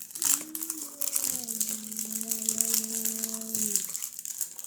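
Plastic toy packaging crinkling and crackling as it is unwrapped by hand, with a steady held tone underneath for about three and a half seconds.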